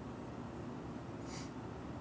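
A short breath out through the nose, a brief hiss about halfway in, over steady low room hum.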